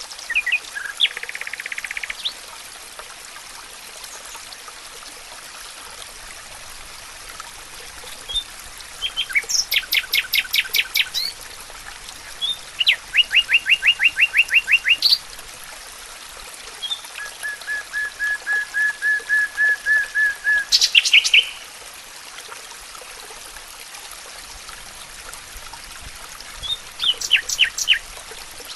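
Songbirds singing: a series of separate phrases, fast trills and strings of repeated notes, one of them swelling and ending in a high flourish, with pauses between, over a steady faint hiss.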